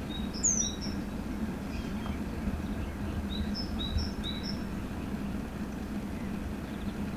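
A songbird singing short phrases of quick high notes: a falling note early on, then a run of three paired notes alternating between two pitches about three seconds in. A steady low rumble runs underneath.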